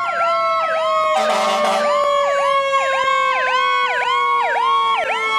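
Fire engine siren on a fast yelp, about three rises and falls a second, over a second steady wail that slides slowly down in pitch. A short horn blast comes about a second in.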